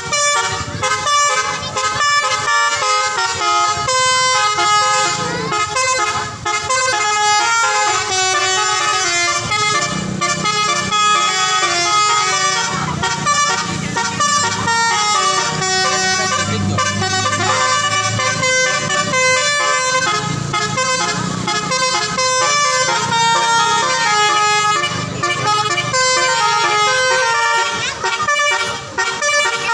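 Telolet musical bus horn (basuri type) playing a melody: several horn notes sound at once and step from note to note without a break. A low hum runs underneath through the middle stretch.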